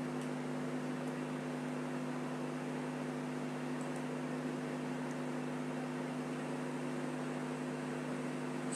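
Steady electrical hum, a low buzz of a few fixed tones over an even hiss, unchanging throughout: room tone with no speech.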